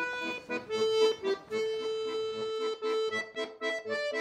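Background music: a melody of held notes over a steady, repeating accompaniment of lower notes.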